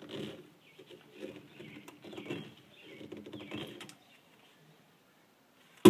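Small screwdriver scraping and clicking against the steel case of a car CD player as small screws are worked out, with handling noise from the unit. One sharp, loud knock right at the end.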